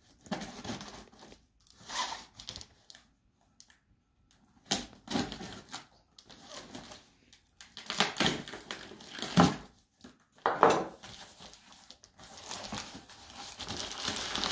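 Packing tape on a cardboard shipping box being slit with a knife and torn, in irregular bursts of tearing and scraping with short pauses, as the cardboard flaps are pulled open. Near the end, steadier crinkling of bubble wrap being handled inside the box.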